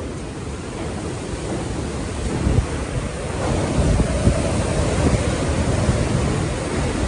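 Strong typhoon wind gusting and buffeting the microphone, a rushing roar with low rumbling blasts that picks up about halfway through.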